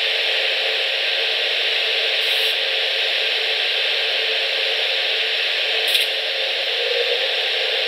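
Steady static hiss from a railcam's audio feed, with a short click about six seconds in.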